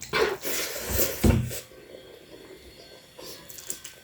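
Close-miked eating and utensil noises from a mukbang meal of noodles, eggs and rice with soup: a burst of loud noisy sounds with a thump in the first second and a half, then quieter small clicks.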